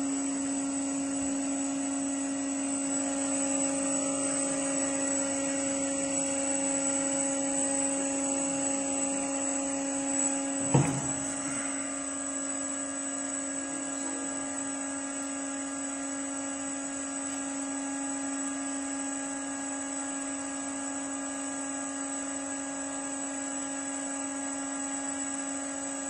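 Steady hum and hiss from the nail-penetration test setup while a pierced cylindrical lithium cell vents smoke. One sharp click comes about eleven seconds in, and the sound eases slightly after it.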